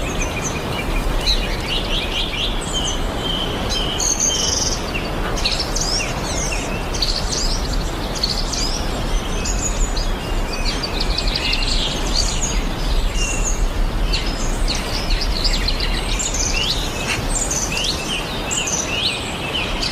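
Several wild birds chirping and calling, with many short quick notes overlapping, over a steady low rushing background noise.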